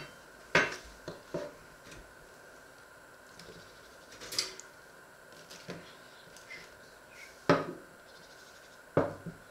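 Kitchen handling on a wooden cutting board: a scatter of short knocks and clatters from a knife and slices of toast being picked up and set down, with a brief scrape near the middle and the two loudest knocks in the last two seconds.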